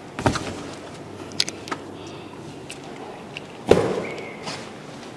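A few sharp pops and knocks from hands working in bubble-wrap-covered tubs: two small clicks in the first two seconds, and the loudest, a heavier thud, about three-quarters of the way through.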